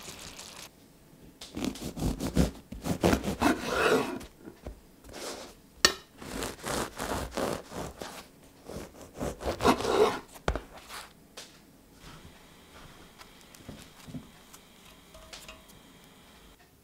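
A knife sawing through a crusty ciabatta loaf on a wooden chopping board: repeated crunchy, scraping strokes in two bouts, with one sharp crack about six seconds in. It is preceded by a brief sizzle of the stir fry in the pan, and it ends in a much quieter stretch.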